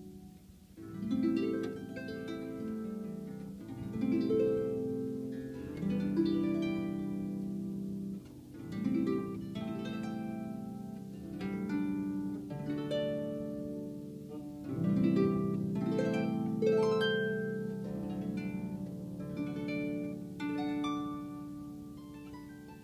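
Harp played: rolled chords and arpeggios, the notes entering one after another in phrases every couple of seconds and ringing on as they fade. The playing grows quieter near the end.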